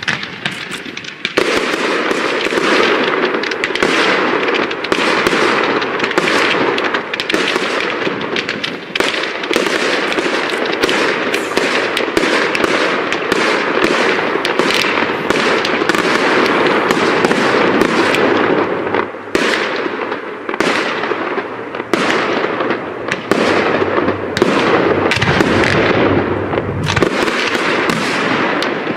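Professional fireworks display: a dense, continuous barrage of bangs and crackling, getting much louder about a second in and keeping up without a break.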